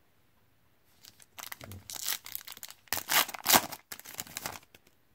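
The foil wrapper of a Panini Contenders Draft Picks football card pack crinkling and being torn open by hand. There is a run of rustles and rips starting about a second in, loudest around three seconds in.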